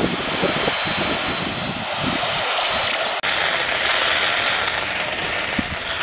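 Hiss and crackle of static from a distant AM broadcast station heard on a radio receiver, with a brief dropout about three seconds in.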